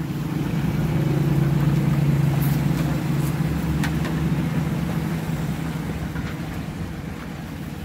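An engine hums steadily, swelling louder about a second in and slowly fading back, over a steady hiss.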